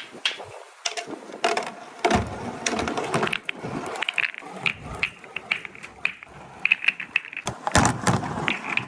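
Balls rolling down a wooden marble-run track, clacking against each other and the wood in quick, uneven clicks, with louder stretches of rolling rumble about two seconds in and again near the end.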